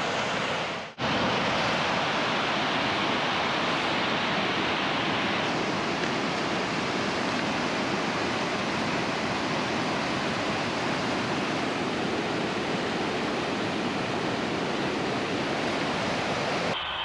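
Steady rushing noise of riding a gravel bike on a rough trail: wind and tyre noise on an action-camera microphone. It cuts out briefly about a second in.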